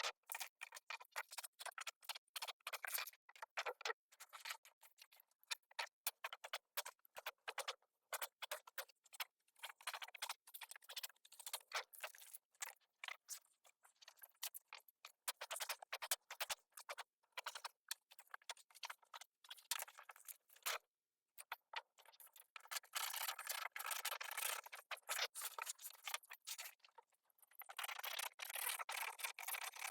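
Faint, rapid, irregular clicking and scratching, with stretches of denser scraping noise about two-thirds of the way through and again near the end.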